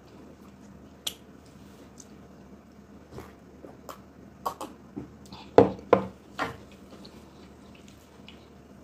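Close-up eating sounds: soft wet mouth clicks and the squish of fingers in slimy ogbono soup and eba, then a few louder gulps about halfway through as a drink is swallowed from a mug.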